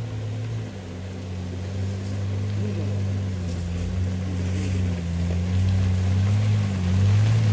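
Nissan Patrol Y61's engine running at low, steady revs as it crawls up a muddy track, its hum growing gradually louder as it comes closer.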